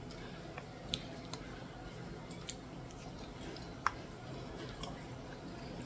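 Quiet room tone with a few faint, scattered clicks, the sharpest about four seconds in.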